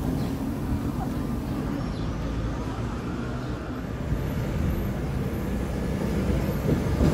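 Sóller electric tram running toward the listener along its street track: a steady low rumble that grows louder near the end as it comes closer.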